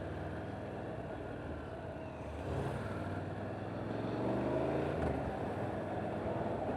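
Motorcycle engine running on the road, its pitch rising as it accelerates from about two and a half seconds in.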